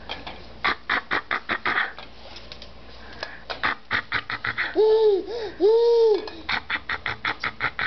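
Quick runs of short coughs, several a second, in three fits. Between them come two drawn-out squeaky calls that rise and fall in pitch.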